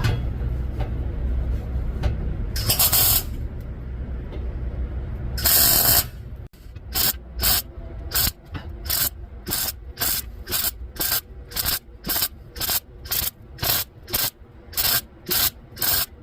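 Welder arcing on steel exhaust tubing: two longer bursts, then from about six seconds in a quick run of short bursts, about two a second, stitching the joint with a series of short welds.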